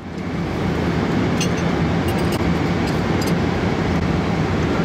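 Steady rushing cabin noise of an airliner in flight, with a constant low hum underneath and a few faint clicks.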